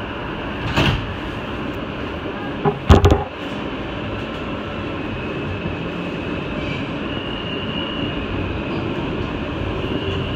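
New York subway train running through a tunnel, heard from inside the car: a steady rumble of wheels on rail, with a sharp knock about a second in and a louder cluster of clacks around three seconds in. A faint high whine comes in from about seven seconds.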